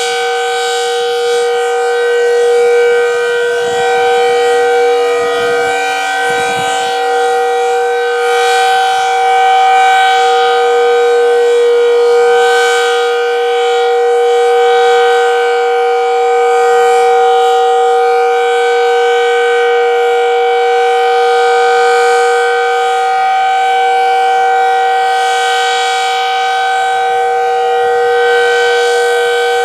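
Decot Red Arrow Model 12 tornado siren sounding its steady Alert signal: a continuous tone held at two fixed pitches, gently swelling and easing in loudness.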